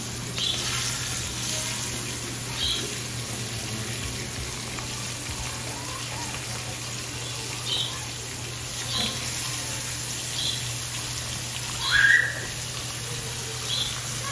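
Beef short ribs sizzling in hot olive oil in a cast iron Dutch oven as they brown: a steady sizzle with brief high chirps now and then. About twelve seconds in, a short rising squeak is the loudest sound.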